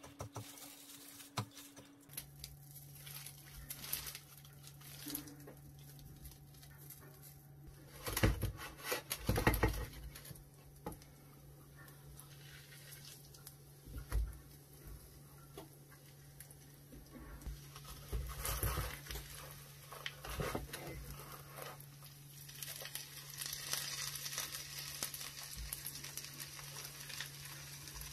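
Breadcrumbs pressed onto a sandwich with a plastic-gloved hand, then the breaded sandwich frying in a pan: light sizzling with knocks and scrapes of the spatula and pan, loudest about eight to ten seconds in, and the sizzle grows near the end. A steady low hum starts about two seconds in.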